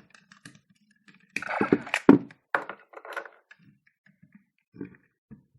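Hard plastic toy morpher being handled: sharp plastic clicks and knocks, with a rattling cluster of clacks about one and a half to two seconds in, then a few lighter scattered clicks.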